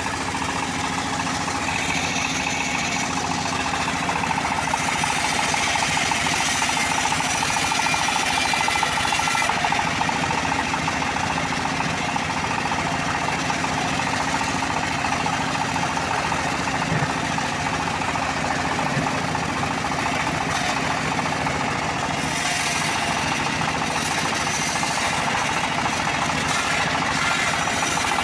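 Homemade bandsaw mill sawing through a teak log: the band blade cutting steadily along the log over the running of the mill's drive.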